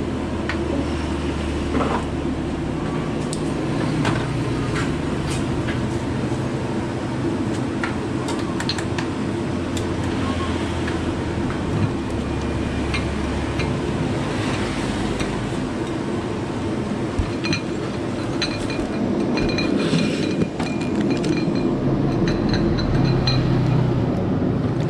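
Wire noodle strainer and chopsticks clinking against ceramic bowls as boiled noodles are shared out, in scattered light clicks over a steady low rumble.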